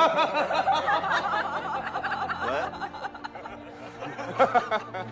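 A man laughing, a run of chuckles that dies down, with a short laugh again near the end.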